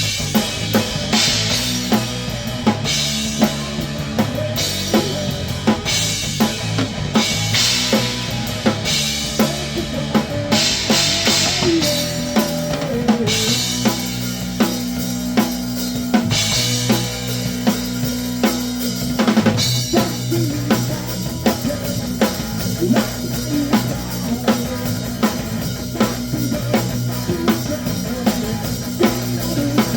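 Grunge rock band playing with the drum kit loud and forward: regular hard snare and bass drum hits on a custom Radius Drums snare, over sustained low guitar and bass notes, with bursts of cymbal wash through the first half.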